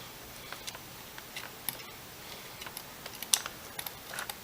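Scattered small clicks and ticks of motor screws and a screwdriver being handled on a racing quadcopter frame while the motor is fitted. One sharper click comes about three seconds in.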